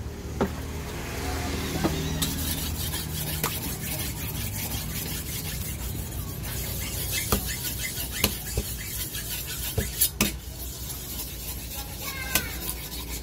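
A large knife slicing through a small tuna on a wooden chopping block: the blade scrapes and rasps through the flesh and along the wood, with scattered sharp knocks of the blade against the block. A steady low hum runs underneath.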